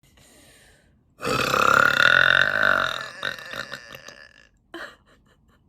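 A woman's long, loud burp, starting about a second in and held for about two seconds, then trailing off in a crackly rattle; a short burst follows near the end.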